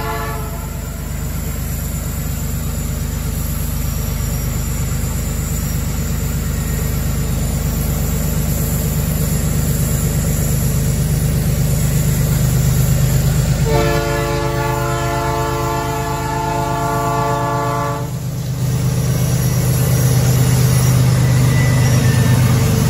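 Diesel freight locomotives approaching and passing close by, their engines running with a steady low rumble that grows louder near the end. The lead locomotive's air horn sounds as a chord: one blast ending about a second in, then a second blast of about four seconds past the middle.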